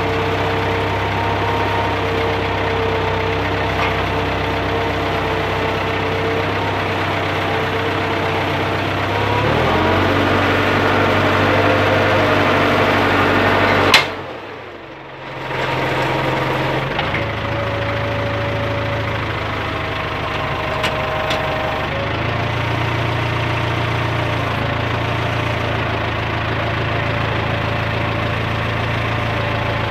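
Tractor engine running, heard from inside the cab, its note shifting a few times as engine speed changes. About halfway through there is a sharp click and a brief dip in the sound before the engine drone returns.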